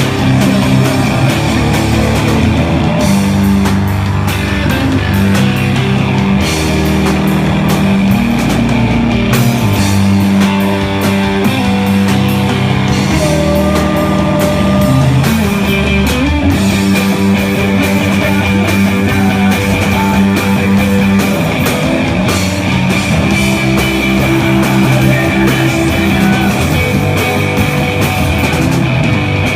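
Rock band playing loud and live, with electric guitar chords that shift every few seconds over steady drum and cymbal hits.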